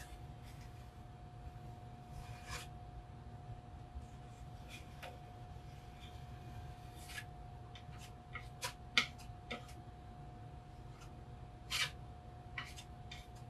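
A 4-inch joint knife spreading and scraping thick chalk paint across a wooden drawer front: quiet, scattered scrapes and light clicks, over a faint steady tone.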